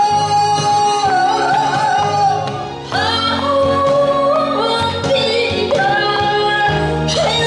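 A woman singing live into a handheld microphone over instrumental accompaniment. She holds one long note with vibrato, then starts a new phrase about three seconds in.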